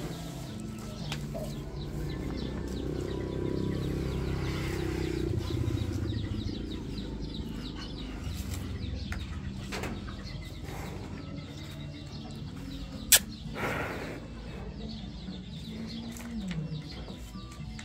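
Birds calling, with a low rumble that swells and fades over the first six seconds. A single sharp knock about thirteen seconds in, followed at once by a brief rushing noise.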